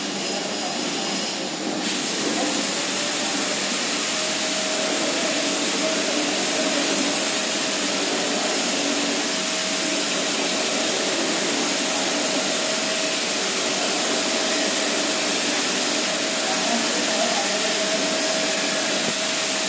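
Steady rushing noise with a faint steady hum, which grows louder and brighter about two seconds in and then holds level.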